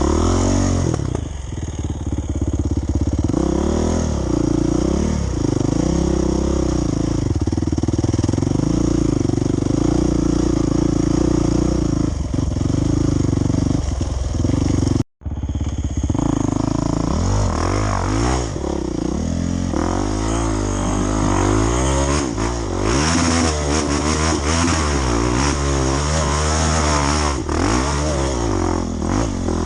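Off-road motorcycle engine revving up and down as it climbs and slides along a trail, with the bike clattering over the ground. The sound drops out for an instant about halfway through, then the revving picks up again.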